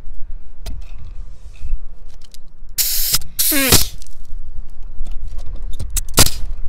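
Metabo HPT NV45AB2 pneumatic coil roofing nailer firing, each shot a sharp hiss of air: twice in quick succession about three seconds in, then once more near the end. Light clicks and scrapes of sheet-metal flashing being handled come in between.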